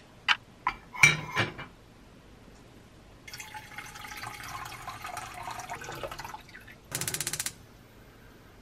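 A red-speckled enamel saucepan set down on a gas hob's metal grate with a few sharp clanks, then water poured into it for about three seconds. Near the end the gas stove's igniter clicks rapidly for about half a second as the burner is lit.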